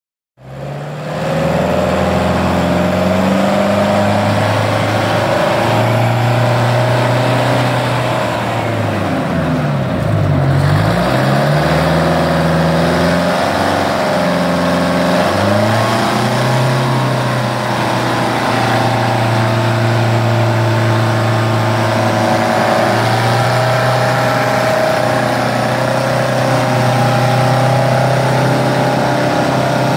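Michigan Clark 175-A wheel loader's diesel engine running. Its pitch dips down and climbs back up about a third of the way in, then holds fairly steady.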